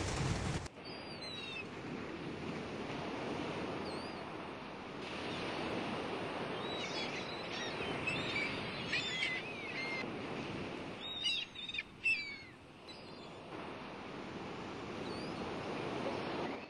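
Bird calls and chirps over a steady rushing wash of water or surf. The calls come thickest in a busy flurry around the middle.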